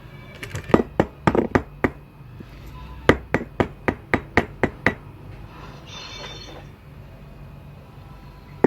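Two quick runs of sharp taps, about four to five a second: the first in the first two seconds, the second from about three to five seconds in. A brief hiss follows near six seconds.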